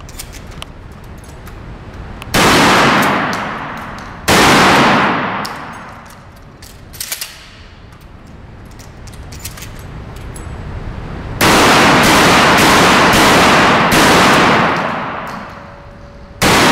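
Gunshots ringing through an indoor shooting range, each followed by a long echoing decay: two shots early on, a rapid string of four or five shots past the middle, and one more near the end. Fainter clicks and pops sound in between.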